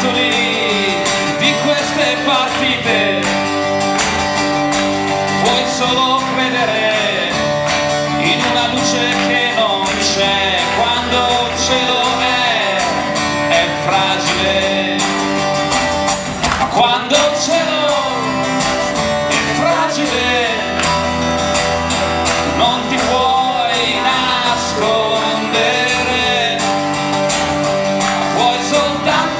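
A man singing a song live and strumming an acoustic guitar as his only accompaniment.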